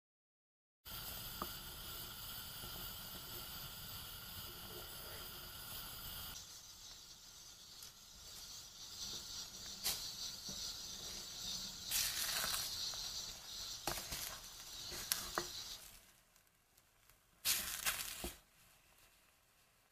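Beaten egg cooking in a hot earthenware ttukbaegi pot over high heat: a steady hiss at first, then from about six seconds in a wooden spatula stirring and scraping the setting egg against the pot, with a few sharp clicks and knocks. The egg is being stirred until it is about 70% cooked, before the lid goes on for the low-heat steaming.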